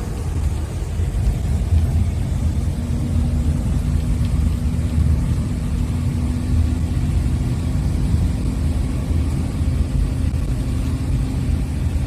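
Engine and road noise of a moving bus heard from inside the passenger cabin: a steady low rumble, with a faint steady hum joining in about three seconds in.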